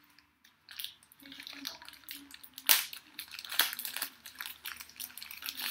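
Clear plastic wrapping crinkling and crackling as a USB charging cable is unwrapped by hand, with sharp snaps, the loudest about a third of the way in.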